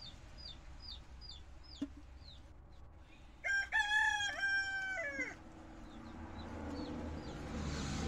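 A rooster crowing once, about three and a half seconds in, for just under two seconds. Short, high chirps repeat about twice a second behind it.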